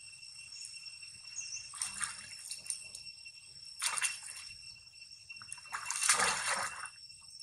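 Water splashing as young long-tailed macaques jump and swim in a pool: three splashes, about two, four and six seconds in, the last the loudest and longest as two of them tussle in the water. A steady high whine of insects runs underneath.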